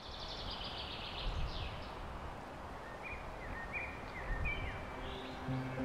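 Outdoor background ambience with birds singing: a rapid trill at the start, then short chirps. A low held music note comes in near the end.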